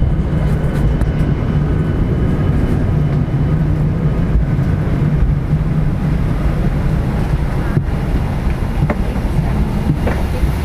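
Steady low drone inside an airliner cabin, with a few faint knocks of movement near the end.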